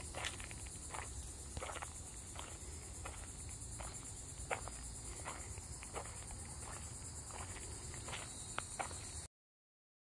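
Footsteps crunching at walking pace on a sandy path, over a steady high drone of insects. About nine seconds in, the sound cuts off abruptly.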